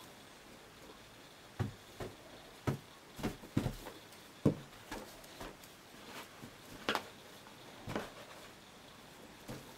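Irregular soft knocks and taps of a helium party balloon being batted and tugged about by a small dog: a dozen or so scattered bumps, a couple of them louder.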